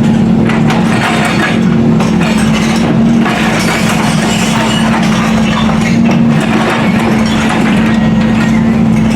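Heavy construction machine engine running steadily with a constant hum, under irregular clattering and crunching of broken road material.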